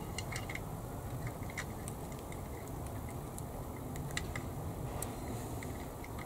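Light, irregular clicks and taps of small plastic model parts being handled, as the tail wheel is worked toward its mounting hole on a 1/32 plastic aircraft kit, over a steady low background hum.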